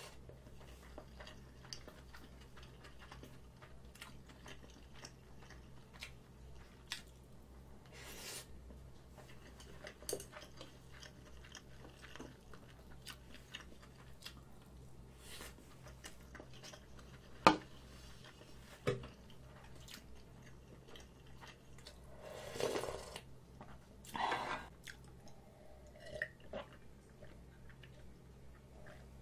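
Close-miked eating sounds: quiet chewing of rice and rolled omelette, with scattered soft mouth clicks. About halfway there is one sharp utensil click, and two louder wet mouth sounds come a little later.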